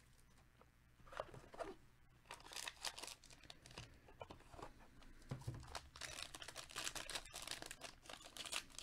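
Foil-wrapped trading card pack crinkling faintly as gloved hands handle it and tear it open. The crinkles come in scattered bursts that grow denser in the second half.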